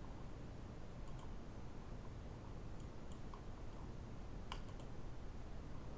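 A handful of faint computer mouse clicks over a low, steady background hum, the sharpest click about four and a half seconds in.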